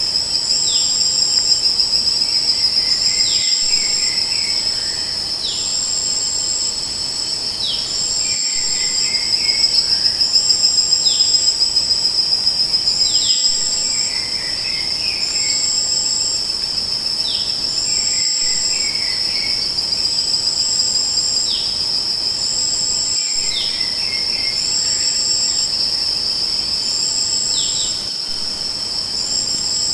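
Crickets trilling steadily, with a higher insect call pulsing on and off about once a second. Short falling chirps followed by a brief twitter come every couple of seconds, and the whole pattern repeats about every five seconds, like a looped recording.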